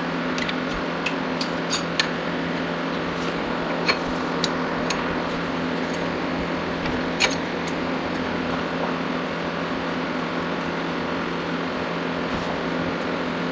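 A steady mechanical hum, with a few sharp light clicks and clinks in the first half.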